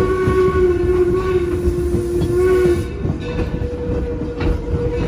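Steam whistle of the Torch Lake steam locomotive held in one long chordlike blast that cuts off about three seconds in, over the steady rumble of the moving train and the clack of its wheels on the rails.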